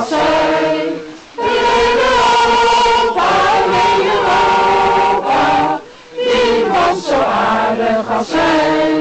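A small group of men and women singing a song together in Dutch, with two short breaks between phrases, about a second in and about six seconds in.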